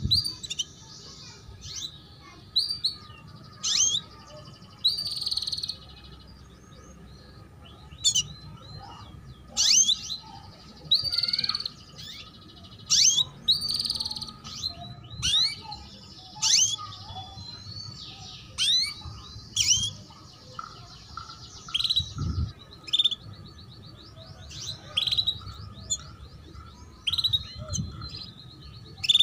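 Hen canary giving short, sharp 'cuit cuit' chirps that sweep quickly upward, repeated irregularly about once a second. They are the calls of a female in breeding condition.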